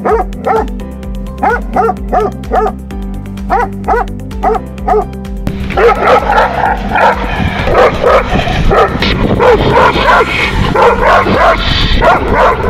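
A Great Pyrenees barking in single, spaced barks, followed about halfway through by a Central Asian Shepherd (Alabai) barking more rapidly and loudly as it lunges on a leash. Background music runs underneath.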